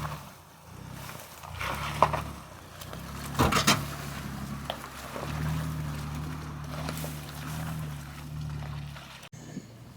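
Off-road vehicle engine running at low speed as it crawls along the trail, with a few sharp knocks about two and three and a half seconds in.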